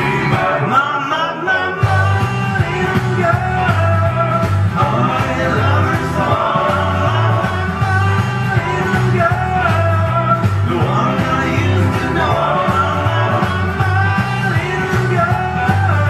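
Rock and roll record playing in a DJ mix: a singer over a steady, repeating bass rhythm.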